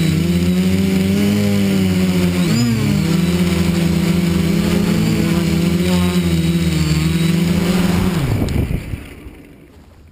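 Multirotor drone's electric motors and propellers spinning close to the microphone with a steady hum; the pitch dips and recovers about two and a half seconds in. Around eight seconds in the motors spin down, the pitch falling as the hum fades out.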